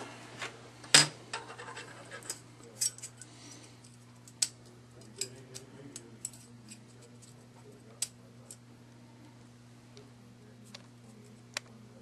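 Sparse small metallic clicks and taps as an AR-15 charging handle and its latch parts are handled with a roll pin punch. The sharpest click comes about a second in, the rest are scattered and fainter.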